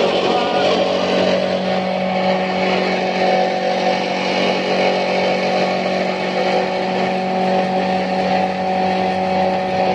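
Forage chopper (mesin cacah) running steadily, its blades driven through a V-belt by a Shimizu water-pump electric motor: a constant hum with a steady whine above it, at an even speed.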